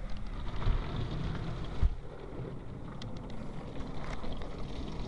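Spray from a Ryko SoftGloss Maxx automatic car wash pattering on the car's body and glass as it applies its Color Wave wax, heard from inside the car, with a single low thump about two seconds in.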